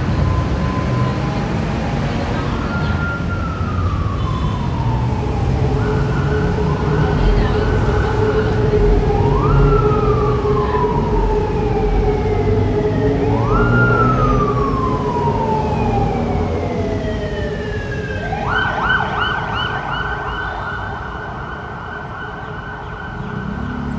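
Emergency vehicle siren over traffic rumble: a wail that jumps up in pitch and slides slowly down, repeating every few seconds, with bursts of a fast-pulsing tone about a quarter of the way in and again over the last several seconds.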